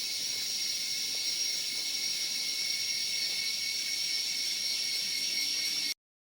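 Rainforest insect chorus: a steady, high-pitched shrill drone that cuts off abruptly near the end.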